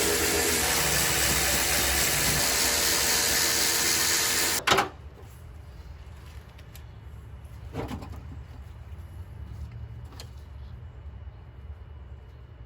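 Power tool motor running steadily, then cutting off suddenly about four and a half seconds in; after it, a few soft knocks from work on the car's front end.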